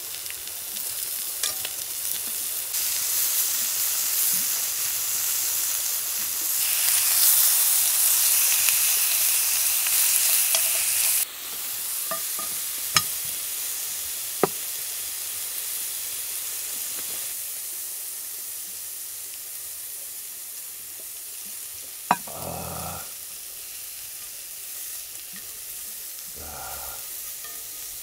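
Food sizzling on a hot grill: a steady high hiss that swells in the middle and drops abruptly about eleven seconds in, with a few sharp clicks and taps later on.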